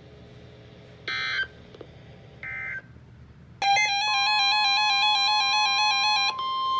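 Weather radio alert signalling: two short electronic data-tone bursts, then a loud warbling electronic alert tone for about three seconds. A steady attention tone starts under the warble and keeps sounding after the warble stops, announcing a new severe thunderstorm warning.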